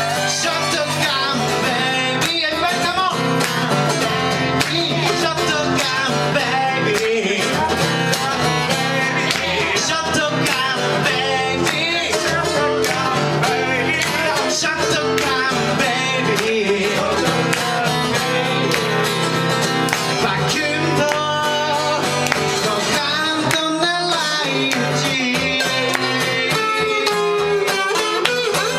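Two acoustic guitars strummed and picked together in a live acoustic duo performance, with a man singing over them.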